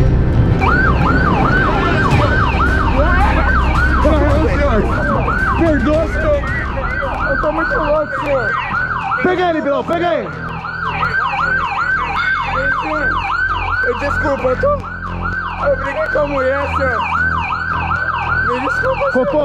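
Police siren on fast yelp, about three quick rising-and-falling whoops a second, with vehicle engine rumble underneath that is strongest in the first half.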